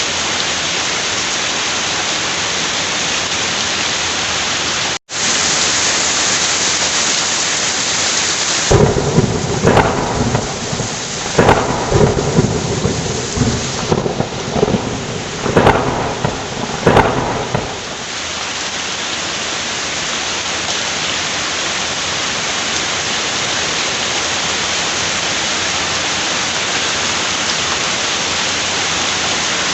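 Heavy rain pouring steadily, with a long peal of thunder about nine seconds in that rumbles and cracks several times for around nine seconds before it fades back into the rain. The sound cuts out for a split second about five seconds in.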